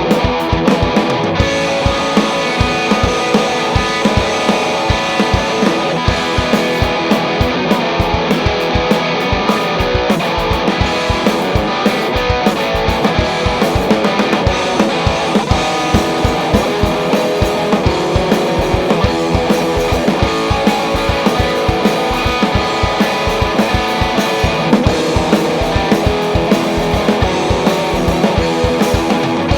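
Electric guitar, a Gibson Les Paul, played through a Fuzzrocious Demon overdrive pedal: a low-to-medium-gain distorted tone, strummed and picked over a steady rock drum beat.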